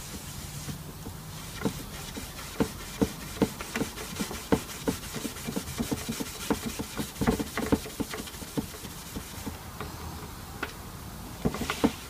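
Fine steel wool wet with methylated spirits being rubbed over a Bakelite radio cabinet to strip paint, in short, irregular scrubbing strokes with small knocks of the cabinet, several a second.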